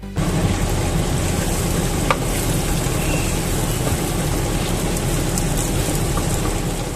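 Sliced onions, green chillies and whole spices sizzling in hot ghee in a clay pot while being stirred with a wooden spatula: a steady frying hiss, the onion-frying stage of a pot biryani.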